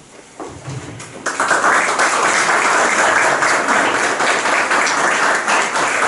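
Audience applauding, starting suddenly about a second in and keeping up steadily.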